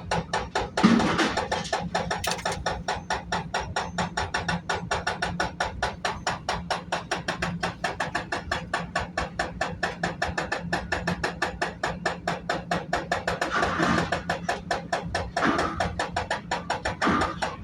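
Hydraulic breaker hammer on a CAT 330 excavator pounding concrete in a fast, even stream of blows, about eight to ten a second, over the engine's steady hum. A few louder crashes stand out, the loudest about a second in and others near the end.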